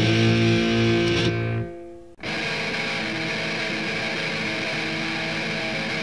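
Noise-rock recording of heavily distorted electric guitar through effects. The loud full playing cuts off about a second and a half in, goes briefly near-silent, then a steady sustained drone of distorted guitar holds at a lower level.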